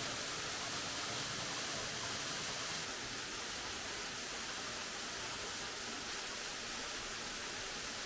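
Steady rushing of water, an even hiss with no breaks, easing slightly about three seconds in.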